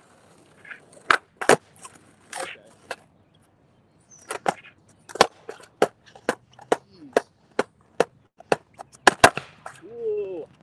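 Freestyle skateboard clacking on pavement during warm-up footwork tricks: a long run of sharp, irregular snaps as the board's tail and wheels hit the ground. There is a pause about halfway through, and the loudest hits come near the end.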